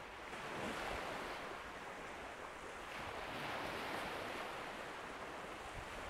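Small waves of a flat calm sea washing onto a sandy beach: a soft, steady wash that swells twice, about a second in and again around the four-second mark.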